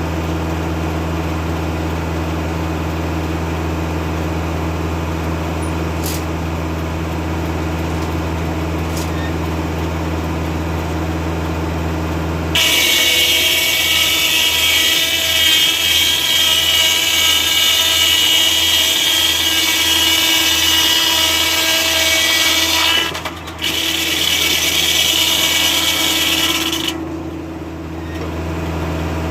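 Foley-Belsaw circular sawmill, driven by a 40 hp Kubota tractor, running with a steady hum of engine and spinning blade. About halfway through, the blade bites into an oak log and cuts for roughly fourteen seconds, much louder and higher-pitched, with a brief dip near the end of the cut before it falls back to the steady running hum.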